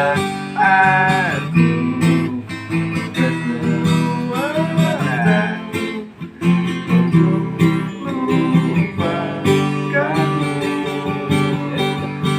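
Music on acoustic guitar: plucked and strummed chords under a melody line that bends and glides in pitch.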